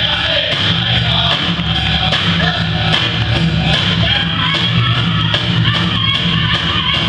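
Recorded powwow song from a drum group: a big drum struck in a steady beat under a group of singers, played loud over a sound system.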